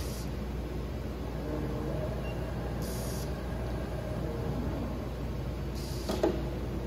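Steady low hum of the machinery in an automated injection-molding and robot cell, with short hisses of air about every three seconds and a sharp click about six seconds in.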